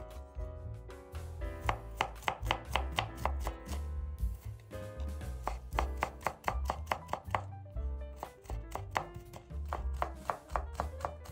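Chef's knife mincing garlic cloves on a wooden cutting board: quick knife strikes, about five a second, with a short pause about four seconds in. Quiet background music runs underneath.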